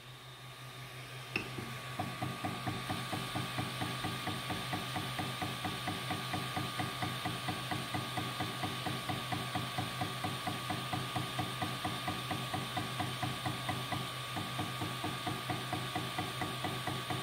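Ender 3 Pro extruder stepper motor skipping steps: a regular clicking knock about four times a second as the drive gear fails to push the PLA filament. This is the sign of severe under-extrusion. A steady hum from the printer runs beneath.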